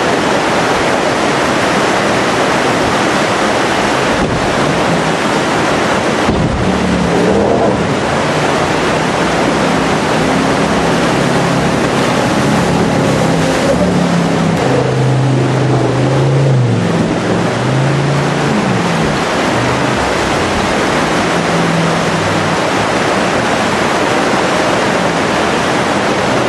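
Whitewater rapids rushing loudly and steadily. Underneath, a jet boat's engine rises and falls in pitch from about six seconds in until about twenty-one seconds in.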